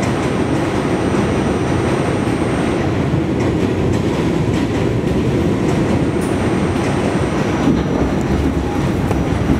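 New York City Subway G train car running along elevated track, heard from inside the car: a steady, loud rumble of wheels on rails with a few faint clicks.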